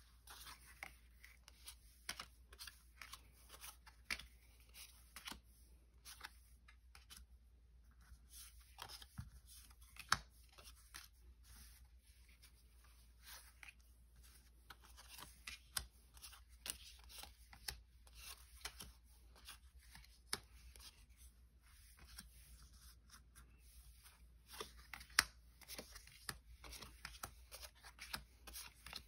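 Faint close-up handling of Pokémon trading cards and their packaging: scattered small clicks, rustles and crinkles as cards and wrappers are slid, flicked and pulled, with a couple of sharper ticks.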